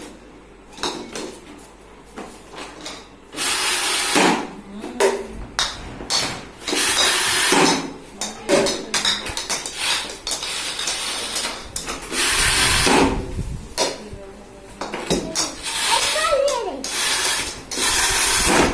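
A foot-stomp plastic ball-pitching toy in play: repeated stomps on its air pump pop plastic balls up, with knocks and clatter of plastic balls and a plastic bat on a hard floor. Children's voices come in now and then.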